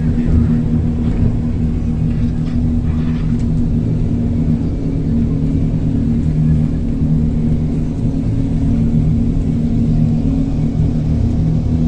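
Passenger speedboat's engines running steadily under way: a loud, even drone with a low hum.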